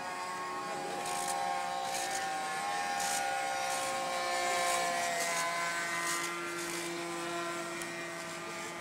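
Distant model-aircraft motors droning steadily overhead, two or more pitches drifting slowly up and down, a lower one joining about halfway through.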